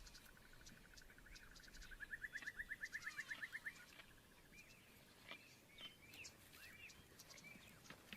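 Faint outdoor ambience of bird calls: a fast, pulsing trill that swells about two seconds in and lasts under two seconds, then scattered short chirps.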